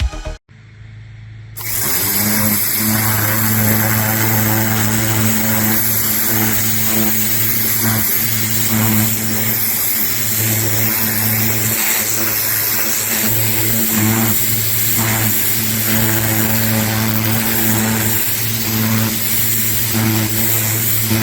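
Pressure washer running steadily: a constant motor hum under the hiss of the high-pressure water spray, starting about a second and a half in after a brief lull.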